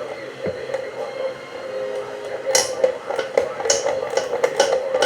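A series of sharp metallic clicks and taps, some ringing briefly, starting about two and a half seconds in over a steady hum.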